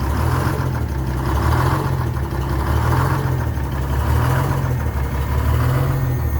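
Detroit Diesel 6-71 two-stroke inline-six diesel in an International Harvester truck idling steadily just after starting, with a slow, even swell in its low note about once a second.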